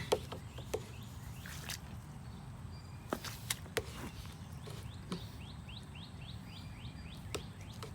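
Scattered clicks and taps from a hand turning a PVC union socket fitting on a water line. In the middle a bird gives a quick run of about ten short chirps, roughly four a second, over a steady low background noise.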